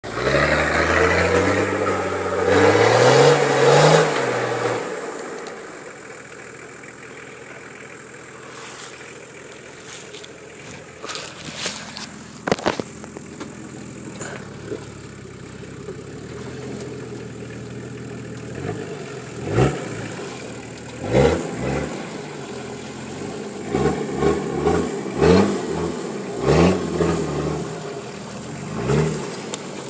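Off-road vehicle engine revving hard and rising in pitch, then dropping to a low idle with a few sharp knocks. From about two-thirds of the way in it gives a series of short blips of the throttle.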